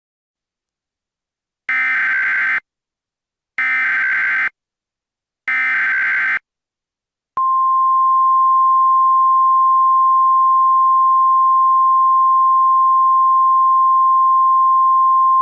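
Emergency Alert System tones: three bursts of SAME digital header data, each about a second long, then a steady single-pitch attention tone just above 1 kHz starting about seven seconds in. This is the sequence that opens a new emergency alert.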